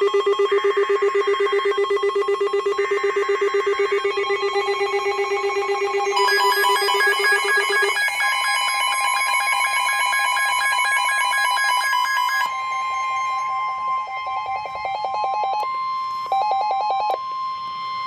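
Weather alert radio and Emergency Alert System alarm tones. Several electronic beeping patterns sound over a low, rapidly pulsing buzz-tone. About eight seconds in the buzz stops and a steady single alert tone takes over, with beeps still sounding on top.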